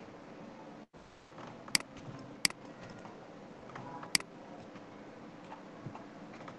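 Three sharp computer mouse clicks, two less than a second apart and a third about a second and a half later, over faint steady room noise.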